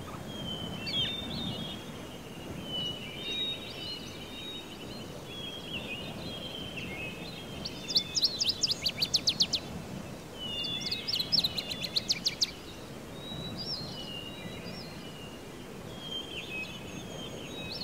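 Songbirds chirping and whistling over a faint outdoor background, with two louder bursts of fast repeated trilling notes about eight and eleven seconds in.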